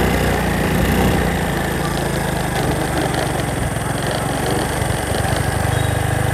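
Small motorbike engine running steadily at a low pitch while riding, with a rushing noise over it.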